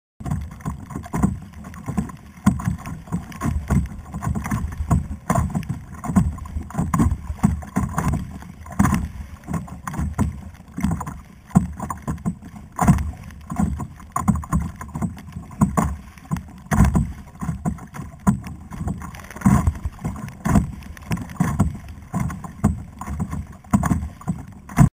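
Water slapping and splashing against a kayak's hull at sea, in irregular bursts.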